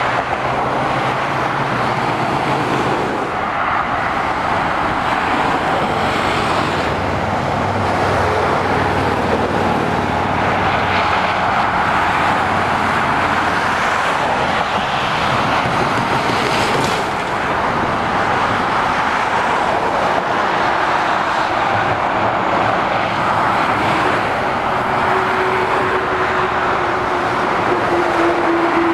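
Continuous motorway traffic passing beneath: tyre noise and diesel engines of heavy lorries, including Scania trucks, along with vans and cars. Near the end a steady whine rises slightly in pitch as a vehicle approaches.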